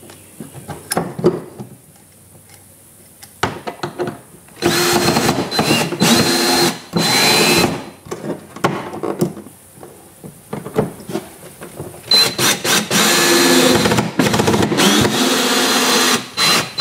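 20V cordless drill with a long bit running in two long bursts, one about three seconds and one about four, at the bilge pump's mounting bracket. The motor whine shifts in pitch as it loads, and light knocks and clicks from handling the bracket come between the bursts.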